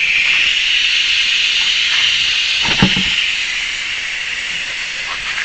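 Air hissing steadily out of a backhoe tire through the valve stem with its Schrader valve core removed, as the tire deflates. A single knock about three seconds in.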